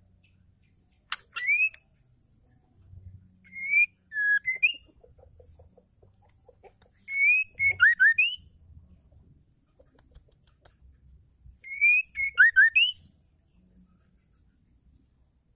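White-rumped shama singing in short phrases of clear, rising whistled notes, four phrases separated by pauses of a few seconds.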